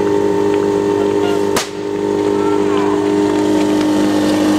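A single sharp crack about a second and a half in, the start shot of a fire-sport attack. Under it, the steady drone of an idling engine, the competition's portable fire pump.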